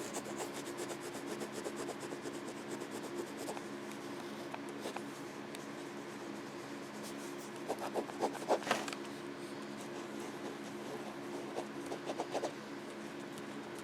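Ballpoint pen writing on paper: faint scratching and rubbing strokes, with louder bursts of strokes about eight and twelve seconds in, over a steady low hum.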